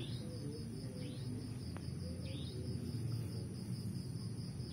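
Crickets chirping in a steady, rapidly pulsing trill, with a few short falling calls and a low background rumble.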